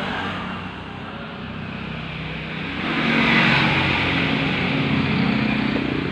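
A motor vehicle's engine running steadily and passing close by, growing louder about three seconds in and easing a little near the end.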